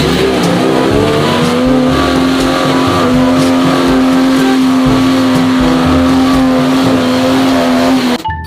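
Car engine revving: the pitch climbs over the first second or so, then holds at a steady high rev with a hiss of noise, and cuts off suddenly near the end.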